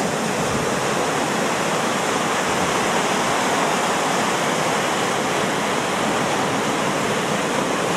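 Ocean surf washing and breaking over volcanic shore rocks, a steady rushing of water.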